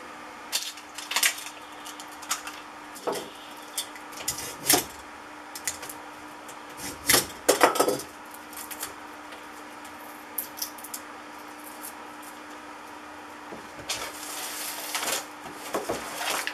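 Scattered clicks, taps and scrapes of hand tools and metal parts while small transformers are cut apart for their copper on a wooden workbench, loudest about seven seconds in. Near the end, a bristle hand brush sweeps debris across the bench for about two seconds.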